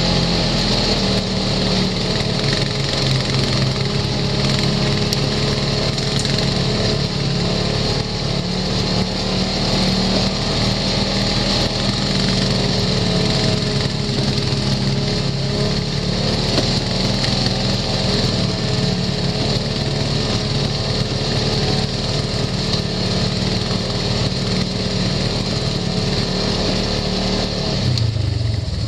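Side-by-side UTV engine running steadily under way on a rough dirt trail, heard from on board, with the engine note dropping lower near the end.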